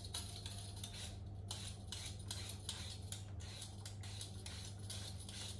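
Vegetable peeler scraping a potato in short, quick strokes, about two to three a second, over a steady low hum.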